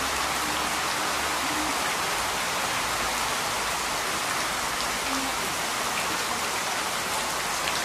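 Heavy rain falling steadily and splashing onto a wet flat surface, a constant hiss with a few louder drop taps scattered through it.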